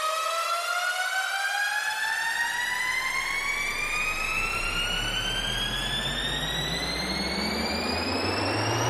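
Electronic test-tone sweep: a siren-like tone gliding slowly and steadily upward in pitch over a hiss. About two seconds in, a deep bass tone joins it and starts climbing near the end.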